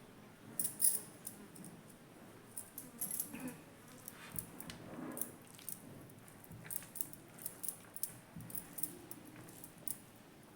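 A person chewing food close to the microphone: many short wet mouth clicks and smacks, irregularly spaced.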